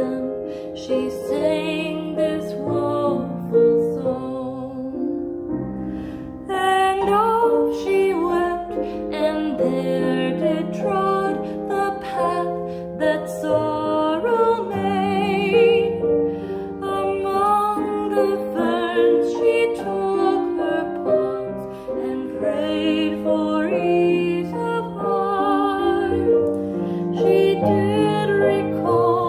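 A woman singing with piano accompaniment, her voice carrying a wavering vibrato, with a brief break in the singing about six seconds in.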